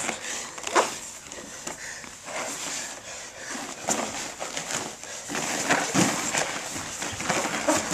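Two MMA fighters grappling on foam training mats: bodies and gloves scuffing and shifting, with irregular thuds, the sharpest about a second in and again about six seconds in, and hard breathing from the effort.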